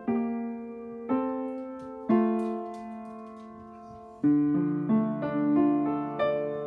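Young Chang upright piano being played: three chords struck about a second apart and left to ring, then a quicker run of lower notes from about four seconds in.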